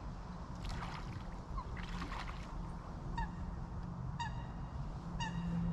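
Waterfowl honking: short calls repeated about once a second, starting about three seconds in.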